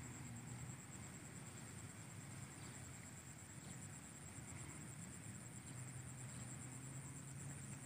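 Faint outdoor ambience: a steady, high-pitched insect trill over a low hum.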